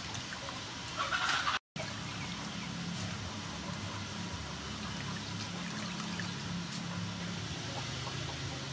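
Water trickling and splashing in a steel bowl as raw shrimp are washed by hand and lifted out in handfuls. A louder splash comes about a second in, then the sound cuts out for an instant.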